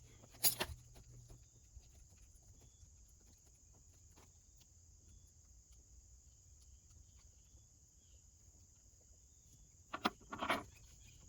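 Steady high-pitched chirring of insects, with faint scattered clicks and a short cluster of louder knocks and clicks near the end.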